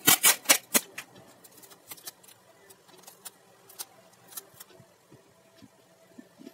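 Clear plastic film crackling as it is handled and laid over a card of paper cut-outs: a quick run of loud crinkles in the first second, then lighter scattered crackles and rustles.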